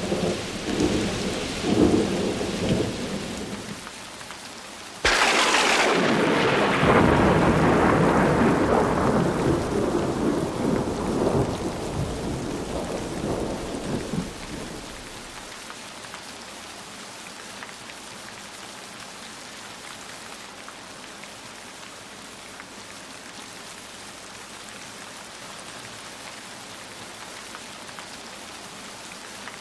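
Thunderstorm with heavy rain: a rumble of thunder fades in the first few seconds, then a sudden sharp thunderclap about five seconds in rolls on for about ten seconds before dying away, leaving steady rain.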